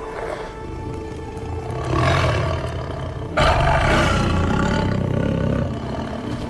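Lions roaring twice over background film music. The second roar starts sharply about three and a half seconds in and is the louder and longer of the two.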